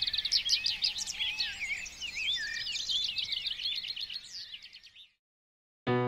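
A chorus of songbirds, many overlapping quick chirps and whistles, fading out about five seconds in. Music with piano-like chords starts right at the end.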